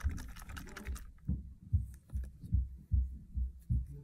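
Handling noise from a phone held right up against the recording device: scratchy clicks and rustling in the first second, then a run of soft low thumps about two a second.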